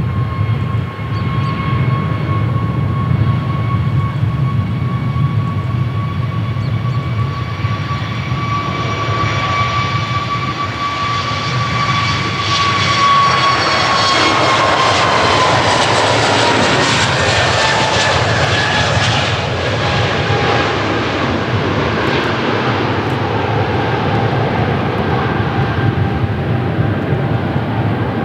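Airbus A320neo's CFM LEAP-1A turbofans at takeoff power during the takeoff roll and climb-out: a low rumble under a steady fan whine that grows louder. It is loudest about halfway through as the jet passes, then the whine drops in pitch as it climbs away.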